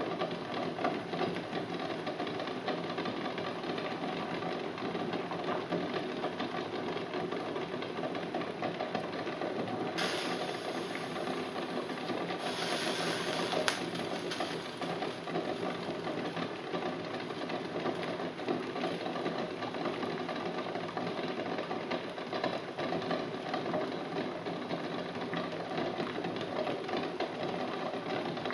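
Eggs rattling against each other and the bottom of a steel saucepan in a rolling boil: a fast, steady clatter mixed with bubbling water. A brief thin hiss rises partway through and ends in a single sharp click.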